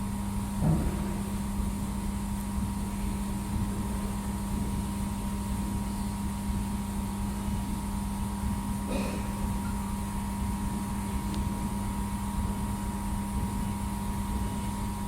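Steady electrical hum of a running 2000 W laser welding machine: a low drone with a fainter, higher tone held over it. There are two faint brief sounds, about a second in and about nine seconds in.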